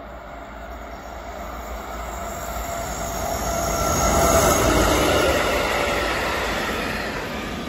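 An electric locomotive hauling passenger coaches passes by, with wheels running on the rails and the locomotive's motors. The sound grows steadily, is loudest about four to five seconds in as the locomotive goes past, then fades as the coaches roll by.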